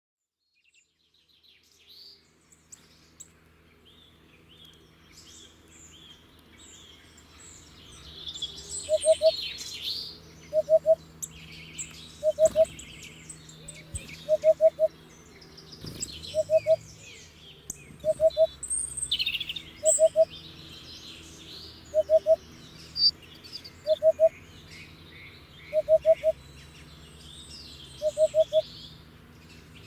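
Hoopoe calling its low 'oop-oop-oop', a three-note phrase (sometimes four) repeated about every two seconds from about nine seconds in, over the busy chirping of other small birds.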